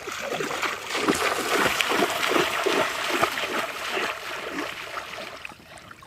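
Shallow water splashing and sloshing, heaviest through the middle and dying away toward the end.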